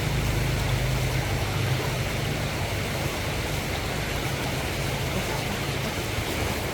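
Steady rush of a waterfall and its stream. Under it a low rumble fades out about halfway through.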